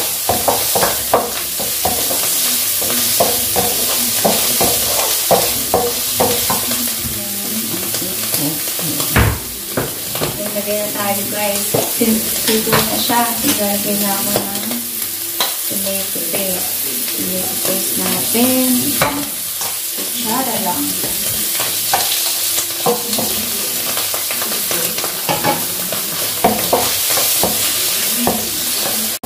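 Mushrooms sizzling in olive oil in a nonstick frying pan, stirred with a wooden spatula that scrapes and taps against the pan. A single sharp knock comes about nine seconds in.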